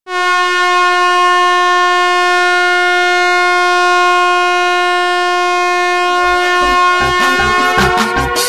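Ice hockey arena goal horn blasting one long, steady, loud note for about seven seconds. Near the end an electronic dance goal song comes in under it, with a kick drum beating about twice a second and a rising synth sweep.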